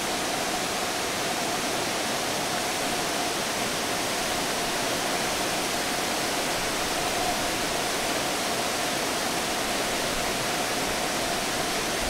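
Fukuroda Falls, a large tiered waterfall, rushing in a steady, unbroken wash of sound.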